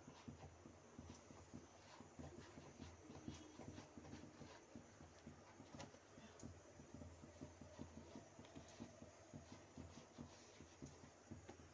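Near silence: a faint low hum with scattered soft ticks and clicks.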